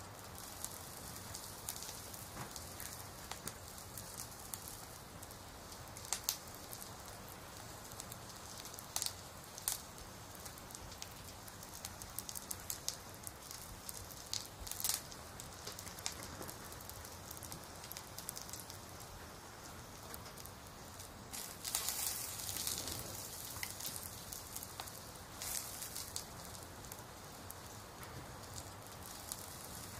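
Soft steady hiss with scattered sharp crackles and clicks, with a busier stretch of crackling about 22 seconds in.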